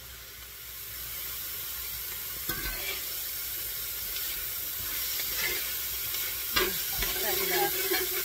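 Diced beef and vegetables frying in butter and sunflower oil in a skillet, a steady sizzle that grows louder about a second in and crackles more toward the end, the sound of the food browning. Two sharp knocks fall about two and a half and six and a half seconds in.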